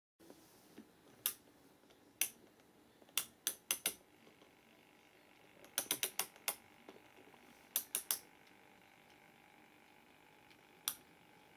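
Sharp mechanical clicks, some single and some in quick runs of three to five, of the kind a notched control lever or switches make as they are worked. A faint steady tone sits underneath from about four seconds in.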